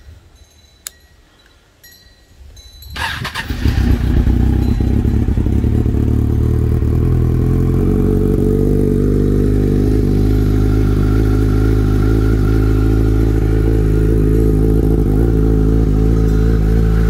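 Kawasaki Ninja 1000's inline-four engine cold-started through a cheap aftermarket stainless steel dual exhaust. It cranks briefly about three seconds in, catches, and settles into a steady idle.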